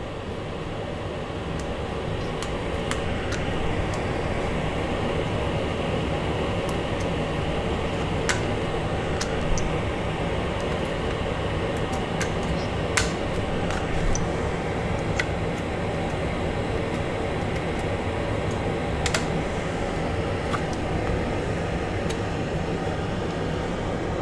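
Steady fan whir that swells up over the first few seconds, with a handful of sharp clicks scattered through it as small gauge stepper motors are pressed into an instrument cluster's circuit board.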